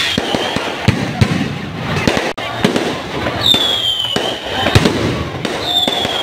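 Aerial fireworks going off: a run of sharp bangs and crackles from bursting shells, with a high whistle falling in pitch about three and a half seconds in and another near the end.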